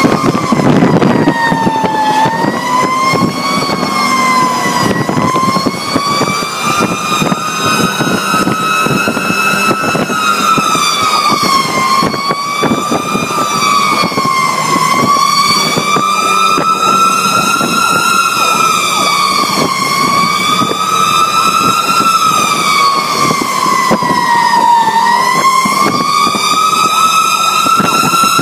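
Fire truck siren wailing, heard from inside the cab of a Pierce Arrow XT aerial ladder truck, its pitch sliding slowly up and down every two to three seconds over the truck's engine and road noise.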